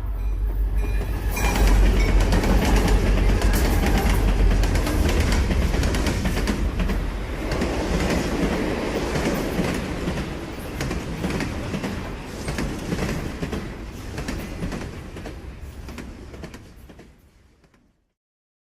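A train passing close by: a heavy rumble with rapid clattering of wheels and cars, swelling suddenly about a second and a half in, then slowly fading away to silence near the end.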